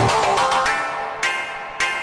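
Background music: a heavy electronic beat drops out at the start, and a few separate pitched notes follow, about half a second apart.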